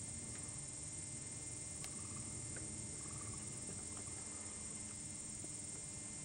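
Steady summer field ambience: insects droning at a high pitch, with a low rumble underneath and a few faint ticks.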